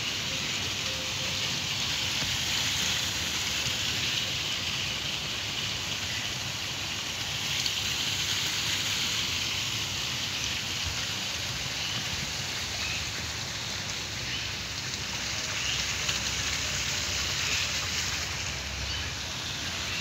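Steady splashing rush of running water from a garden pond's water feature, a rain-like hiss.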